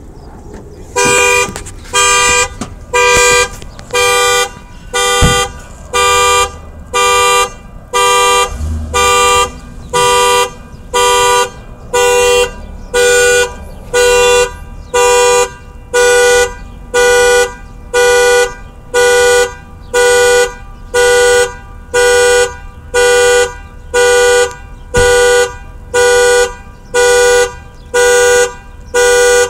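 Car alarm sounding the car's two-note horn in regular honks, about one a second, starting about a second in.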